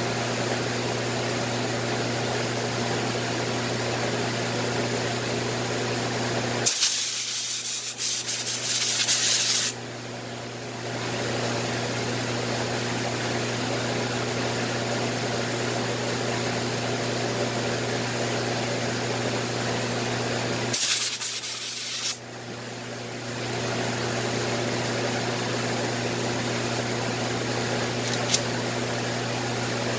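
Hand block sanding: sandpaper on a sanding block rubbing over the sealed finish of a baby grand piano, over a steady low hum. The rubbing is loudest and hissiest in two stretches, about seven to ten seconds in and again around twenty-one seconds.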